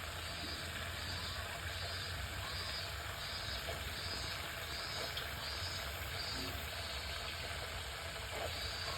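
Steady wash of running water with a low rumble underneath, and a faint high hiss pulsing about once every two-thirds of a second.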